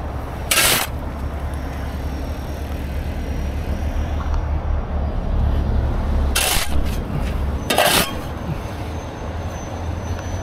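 A steel shovel scraping sharply on asphalt three times, about half a second in, at about six and a half seconds and near eight seconds, as dirt is cleared off the road. Under it runs the steady low rumble of a heavy tow truck's engine.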